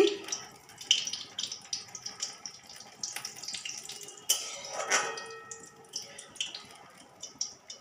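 Batter-coated pui (Malabar spinach) leaf fritter deep-frying in hot oil in an aluminium kadai, sizzling steadily with many small crackles and pops.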